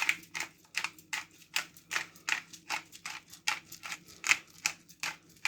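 Pepper grinder being turned over the food: a quick, even run of short rasping strokes, about three a second.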